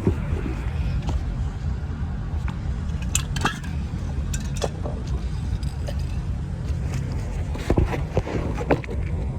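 Scattered metal clinks, clicks and scrapes of parts and tools being handled, over a steady low rumble.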